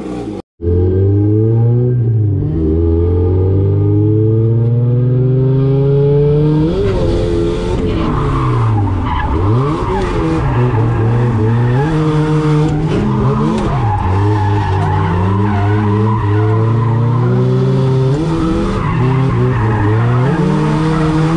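A Mazda Miata's four-cylinder engine heard from inside the cabin, revving hard, its pitch climbing and then dropping and rising again and again as the car is drifted. From about six seconds in, tyre skidding and squealing on the wet surface is mixed in.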